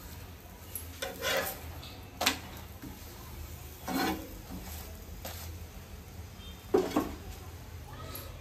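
Metal spatula scraping and clicking against an iron tawa as a chapati is pressed and turned: about five brief scrapes and knocks, the loudest near the end, over a low steady hum.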